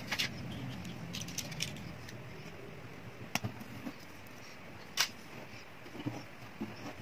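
Hands handling a nylon-string classical guitar on a workbench, working at its bridge and shifting the body: scattered sharp clicks and light taps, the loudest about five seconds in, over a faint low hum.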